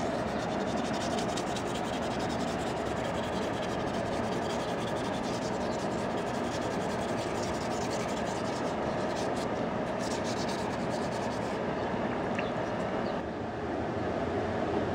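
Hand wet-sanding of a yellow wonderstone and black pipestone pipe piece with 400-grit sandpaper in a bowl of water: a steady, fast scratchy rubbing. Near the end the sanding stops and water runs into the bowl.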